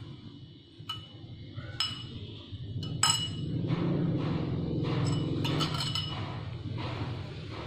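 A metal spoon clinking against a ceramic bowl: about six sharp, ringing clinks, the loudest about three seconds in, over a low steady hum.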